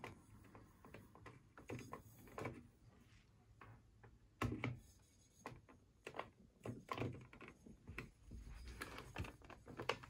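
Faint, irregular taps and knocks, about a dozen, with the loudest knock about four and a half seconds in.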